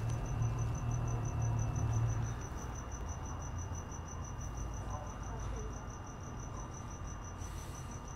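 A cricket chirping steadily in quick, even pulses, over a low hum that eases off after the first couple of seconds.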